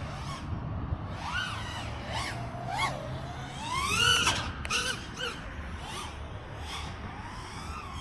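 5-inch FPV quadcopter's brushless motors and propellers whining in flight, the pitch swooping up and down with each throttle change. The biggest sweep, a long rise and fall, comes about four seconds in.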